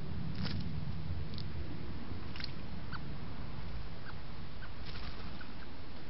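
A common blackbird bathing in a shallow garden pond: a few brief splashes and wing flicks, with a sharp click or two, over a steady microphone hiss. Faint short chirps come now and then.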